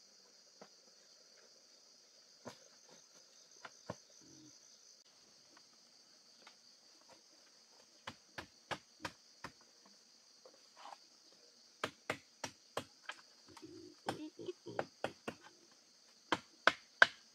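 Steady high buzz of forest insects. From about halfway in, a machete chops at wood in quick runs of sharp knocks that grow louder near the end.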